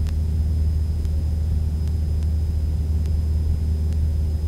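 Cessna 172's piston engine and propeller heard from inside the cabin in cruise flight: a steady low drone, with a faint tick about every three-quarters of a second.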